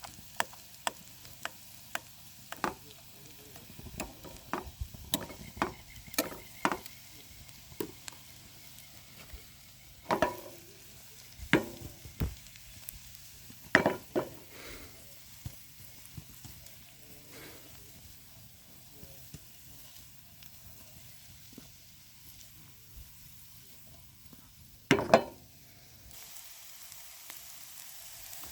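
Onion and carrot sautéing in a pan over a campfire: a faint sizzle under repeated scrapes, taps and knocks of a utensil stirring the pan. The loudest knocks come about ten, eleven, fourteen and twenty-five seconds in.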